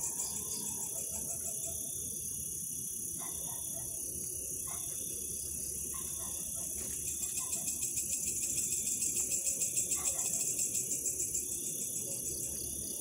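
Crickets chirring in a dense, high, fast-pulsing trill that swells louder about two-thirds of the way through.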